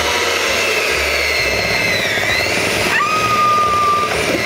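Electric hand mixer running, its beaters churning chunks of banana in a glass bowl. The motor whine sags in pitch about halfway through, then jumps to a new steady tone about three seconds in.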